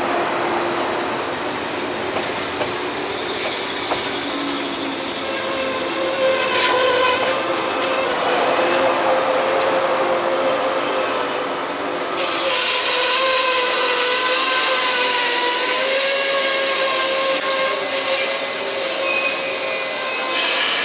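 JR East 185 series electric train moving along the platform, its wheels squealing in steady held tones. A higher-pitched squeal joins about two-thirds of the way through.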